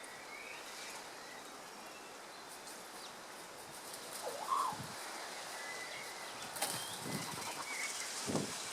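A tui mobbing a kaka parrot: short high whistled bird notes, a louder call about four and a half seconds in, and brief bursts of wing flapping during the attack.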